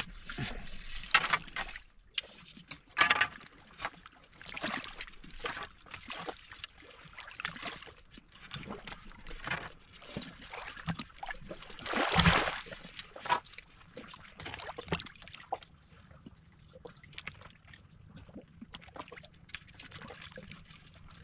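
Water splashing and trickling in irregular bursts as objects are handled in shallow water, with one louder, deeper splash about twelve seconds in.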